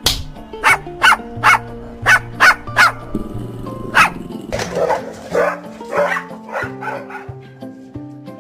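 A dog barking, about eight sharp, loud barks in the first four seconds, followed by a run of softer, shorter calls, over background music.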